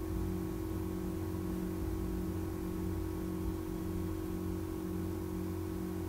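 Steady background hum and hiss, with a low tone that pulses on and off about twice a second.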